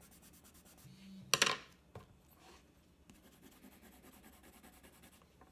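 A short clink of a brush or pencil knocking against a hard surface, about a second and a half in, followed by a lighter tap half a second later.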